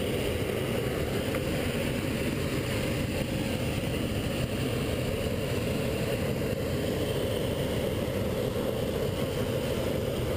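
Hot air balloon's propane burner firing continuously overhead, a steady deep rushing noise.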